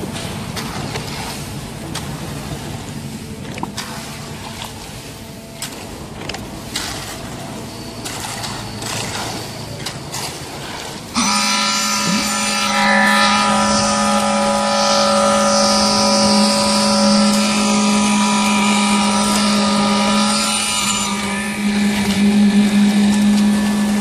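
Machinery engine running at a pour: a rough, noisy rumble with scattered knocks, then about eleven seconds in a louder, steady engine hum with several pitched lines takes over.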